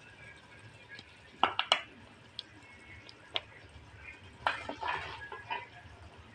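A serving spoon knocking and scraping against a clay cooking pot and a ceramic plate as thick mutton curry is dished out: a few sharp clinks, the loudest a quick pair about a second and a half in, and another cluster of knocks about four and a half to five and a half seconds in.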